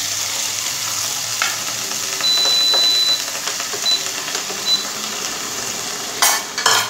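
Parboiled potato chunks sizzling steadily in hot oil in a frying pan, just after being added, with two short louder sounds near the end.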